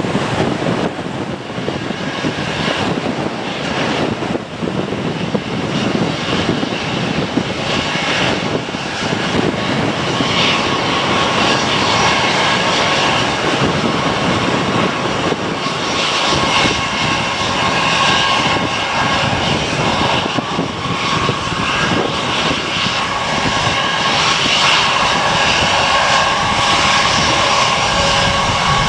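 Twin-engine jet airliner taking off: the engines at takeoff thrust make a steady roar that grows louder, with a whining tone standing out from about ten seconds in.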